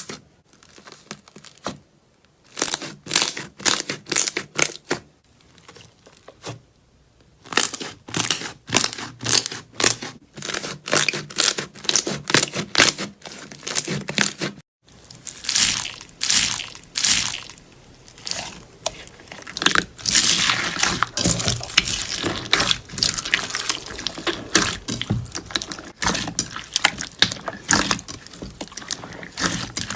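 Slime being squeezed, pressed and pulled by hand, giving runs of short sticky crackling and squishing sounds, about two a second. About halfway through the sound cuts and changes to a denser, more continuous crackle.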